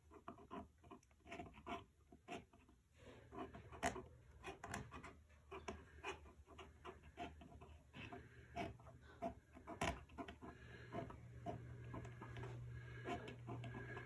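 Paintbrush working on rough watercolour paper: a string of faint, irregular short scrubbing and tapping strokes.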